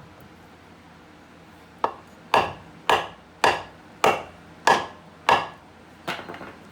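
Metal hammer striking a wooden block held against the end of a CV shaft, driving the shaft in: about eight sharp blows at roughly two a second, starting about two seconds in, the last one a little softer.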